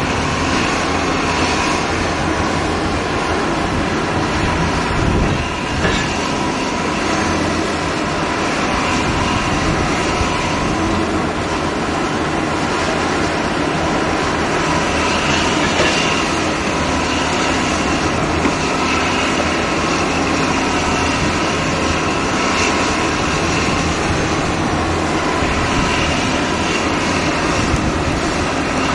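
Heavy demolition machinery running steadily: a low engine drone with a faint whine over it.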